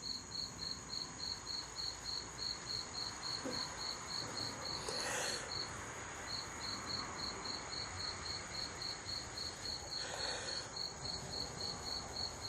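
A cricket chirping steadily, about two to three chirps a second, with a short break about halfway, over a faint steady high whine. There are brief rustles of handling about five and ten seconds in.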